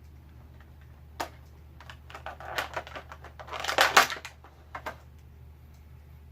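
Plastic toy packaging and small plastic accessories being handled: a run of clicks and crinkling rustles, loudest a little past the middle, as an action figure's pieces are taken out of the box tray.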